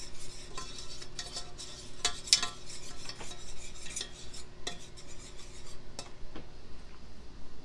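Wire whisk scraping and clinking against the bottom and sides of a stainless steel saucepan, stirring a butter-and-flour roux as it cooks. The strokes come unevenly and stop about six seconds in.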